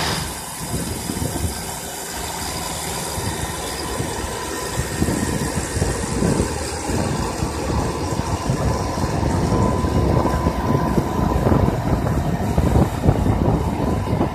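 BC404 40 hp tractor's engine running steadily as it pulls a three-bottom plough through the soil. It grows a little louder and rougher about five seconds in.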